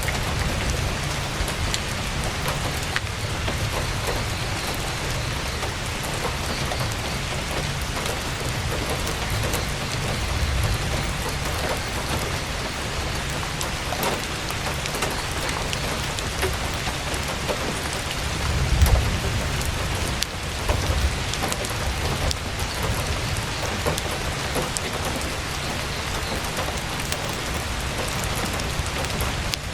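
Heavy rain drumming steadily on a tent's canvas, with scattered sharp crackles from a campfire. A low rumble swells briefly about two-thirds of the way in.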